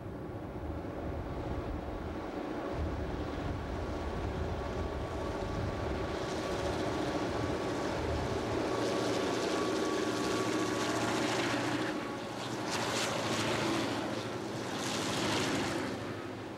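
EMD GP9 diesel locomotives pulling a loaded stone train, their 16-cylinder two-stroke engines drawing steadily louder as they approach. About twelve seconds in, a loud rushing noise comes as the units pass close by; it fades near the end as the loaded hopper cars follow.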